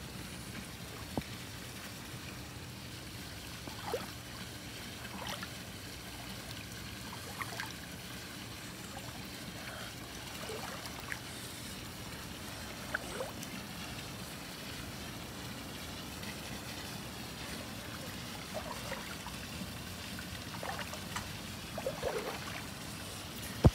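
Swimming pool water lapping and trickling, with scattered small plinks and splashes over a steady low hum. A sharp click near the end.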